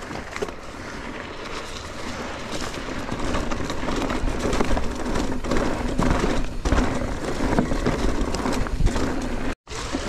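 Mountain bike riding down a dirt trail: tyres rolling over dirt and roots, the bike clattering over bumps, and wind rushing on the microphone, all growing louder as speed builds. The sound cuts out for a moment near the end.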